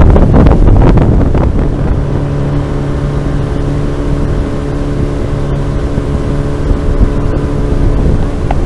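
Outboard motor pushing a small aluminium boat along at steady speed, a constant droning hum. For the first second and a half wind buffets the microphone, and after that the engine's drone is plain.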